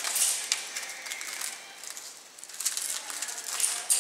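Aluminium foil crinkling as it is peeled back from the rim of a baking tray, in short irregular crackles with a brief lull about halfway through.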